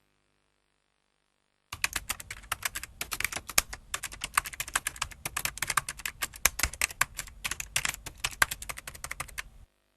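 Rapid, irregular clicking that starts about two seconds in and stops just before the end.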